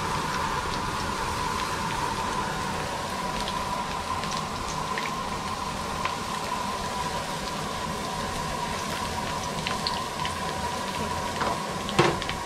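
Minced garlic frying in hot oil in a wok: a steady sizzle with small scattered crackles as the garlic turns golden. One sharp knock near the end.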